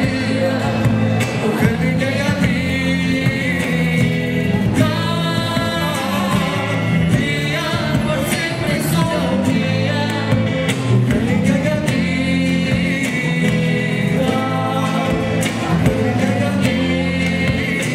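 Live Argentine folk band playing: a woman and a man singing over electric guitar, bass and a bombo legüero drum.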